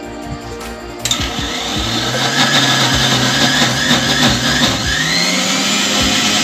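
Electric mixer grinder switched on about a second in and running loud and steady, grinding boiled raw-mango puree with sugar; its tone rises a little about five seconds in.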